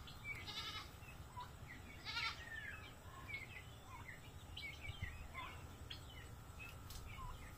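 Farmyard animal calls: many short chirps keep repeating, and two louder buzzy, bleat-like calls come about half a second and two seconds in.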